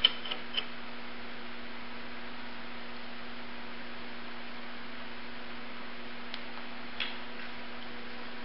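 Steady electrical hum with faint hiss, with a few faint light clicks near the start and again about six and seven seconds in.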